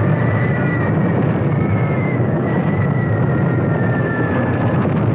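Aircraft engines droning over a heavy, continuous rumble, with several high engine tones sliding slowly down in pitch: battle sound effects on a wartime newsreel soundtrack.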